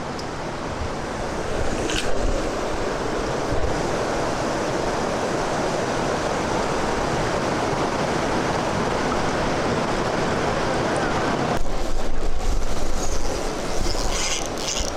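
Steady rush of river water flowing over a rocky run. About twelve seconds in it changes abruptly to a quieter, lower wash with short scratchy high sounds near the end.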